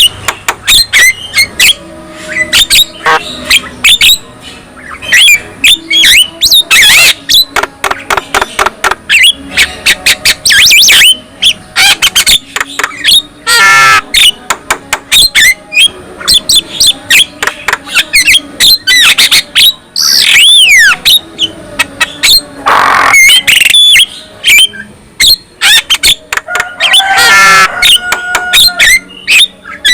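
Javan myna singing loudly: a rapid, varied run of harsh squawks, clicks and chatter, broken by a few clear whistles that swoop down in pitch.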